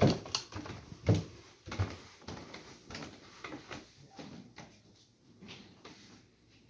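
Knocks and clicks of objects being handled: a few sharp knocks in the first two seconds, then lighter clicks that fade away.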